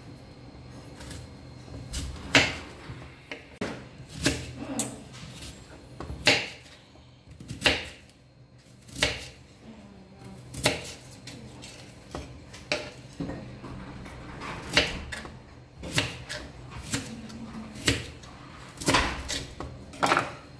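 Kitchen knife slicing through an onion and knocking on a wooden cutting board, one sharp cut every second or two.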